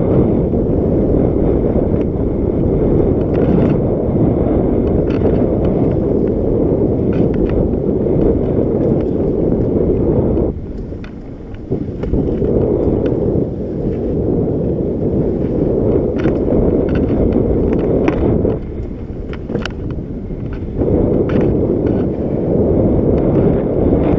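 Wind buffeting the microphone as a mountain bike rides fast down a dirt trail, with the ticks, knocks and rattle of the bike over bumps and roots. The wind noise drops twice for a second or two, and the clicks and rattles come through more clearly.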